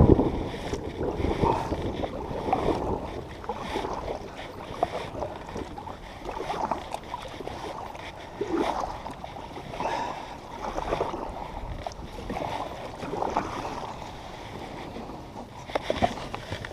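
Kayak being paddled hard and fast: water splashing and sloshing with each paddle stroke, about one every second or two.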